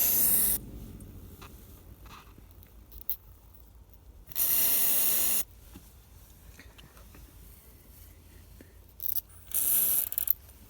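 Aerosol can of VAG white grease spray hissing in four short bursts as it is applied to a door hinge; the longest lasts about a second.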